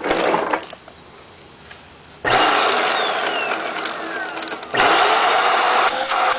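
A Hoover vacuum cleaner's motor is switched on about two seconds in and runs loudly, with a whistle that falls in pitch. Near the end it cuts out for a moment and starts again, its whine rising as the motor spins back up. It is drawing plenty of suction.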